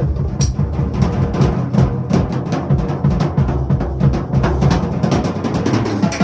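Drum solo: fast rolls of rapid strokes on low-pitched drums, with a sharp cymbal-like hit about half a second in.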